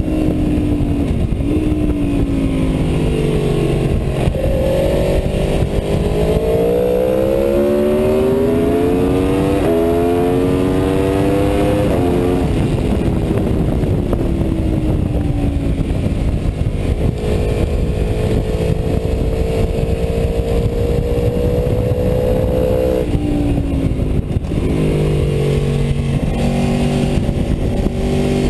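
Aprilia Tuono V4's V4 engine at full track pace, its pitch climbing through several upshifts with a sudden drop at each change. It then falls away off the throttle, holds steady, dips, and pulls hard again near the end, all over a heavy rush of wind noise.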